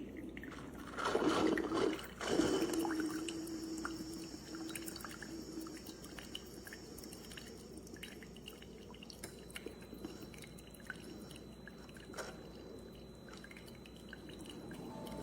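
Liquid pouring and splashing into a vessel for about a second and a half, starting about a second in, then light scattered dripping.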